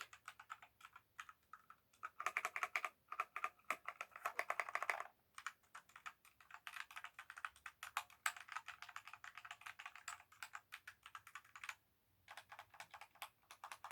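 Typing on a SNPURDIRI 60% mechanical keyboard: quick runs of key clicks, pausing briefly twice.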